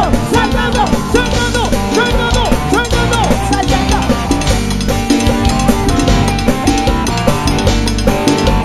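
Cumbia band playing live: melodic lead lines, likely electric guitar, over a steady drum-kit and bass dance beat.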